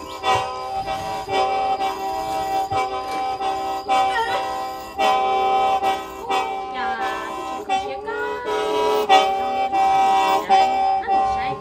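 Hmong qeej, a bamboo free-reed mouth organ, being blown: several reedy tones held together as a chord. Sliding, bending pitches come in around the middle, and new phrases start with a jump in loudness about halfway through and again near the end.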